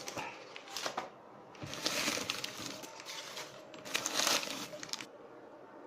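Newspaper crumpling and rustling in several bursts as it is handled, stopping about five seconds in.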